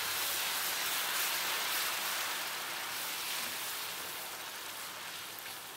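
Ground onion paste sizzling as it fries in hot oil and butter in a kadhai: an even hiss that slowly fades.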